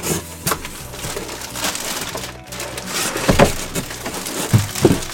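Cardboard shipping box being opened by hand: irregular scraping and crackling of the flaps with several sharp knocks, the strongest in the second half, over soft background music.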